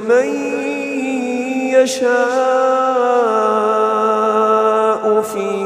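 A man's voice in melodic Quran recitation, holding one long drawn-out vowel that steps down in pitch about three seconds in. Two brief clicks come through, one near two seconds and one just after five.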